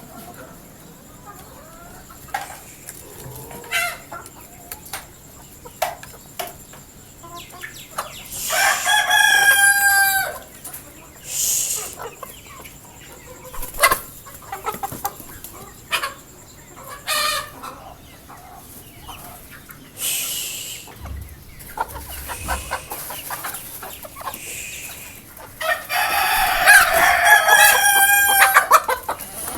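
Desi roosters crowing twice, a long crow about a third of the way in and another near the end, with hens clucking in short calls in between.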